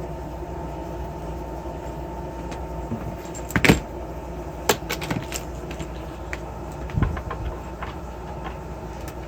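A few knocks and clicks from a soldering station and its parts being handled, the loudest about three and a half seconds in, over a steady background hum.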